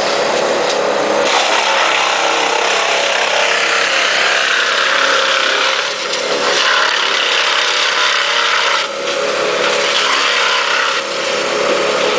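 Cat 226B skid-steer loader's diesel engine running steadily under load as the machine works, with brief dips in engine level a few times.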